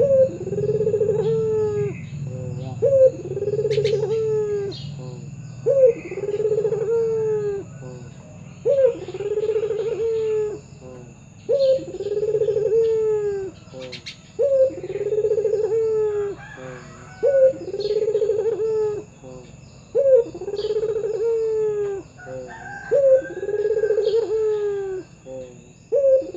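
Barbary dove (burung puter) cooing over and over in its full song: each phrase is a short sharp note followed by a longer rolling coo that falls away, repeated about every three seconds. Small birds chirp faintly in the background.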